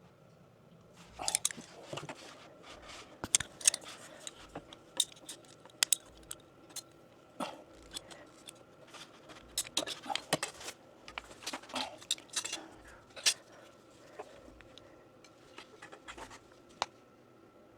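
Hand work on PEX plumbing: a run of irregular clicks, taps and scrapes of tools, fittings and plastic pipe being handled and fitted.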